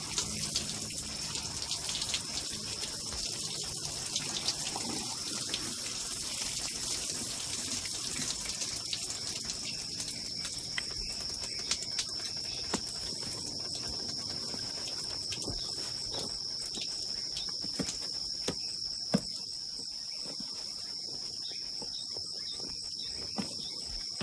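Shower water spraying and splashing, over a steady high-pitched drone of crickets. The water thins out in the second half, leaving the insects and a few light knocks.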